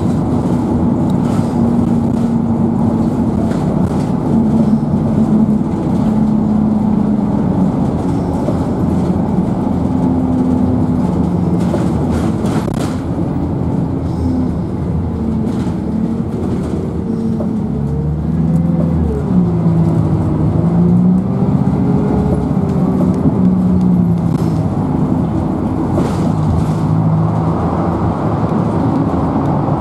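Dennis Dart single-deck bus heard from inside the saloon while on the move: the diesel engine runs under constant road noise, its note stepping and wavering up and down with speed. There are a few knocks and rattles from the body.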